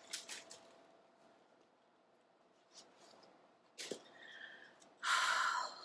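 Light clicks and rustling from handling a clear plastic cover and a pink satin mule, with a sharp click just before the fourth second and a louder half-second rustle near the end.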